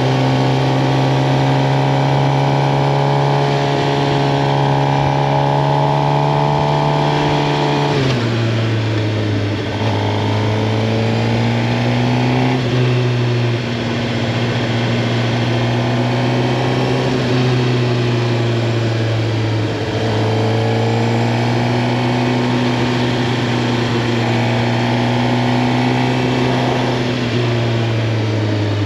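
Suzuki GSX-R 750's inline-four engine running while riding, holding a steady pitch at first, then dropping suddenly and rising and falling gently several times.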